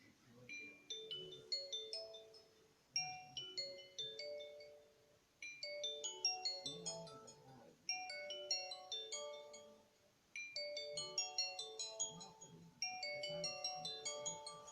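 An Alcatel OneTouch U5 phone playing one of its built-in ringtones: a melody of quick, high notes in short phrases that start over about every two and a half seconds.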